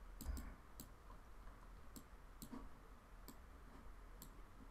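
Faint computer mouse clicks, about eight scattered single clicks at uneven intervals, over a low steady hum.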